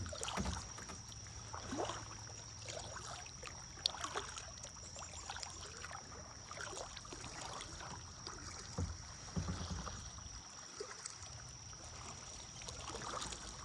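Kayak paddling on a river: paddle blades dipping and dripping water, with a few light knocks, over a steady faint high-pitched tone.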